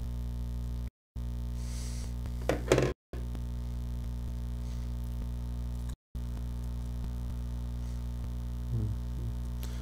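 Steady electrical mains hum, a low buzz with evenly spaced overtones, carried on the microphone line. The sound cuts out completely for a moment three times.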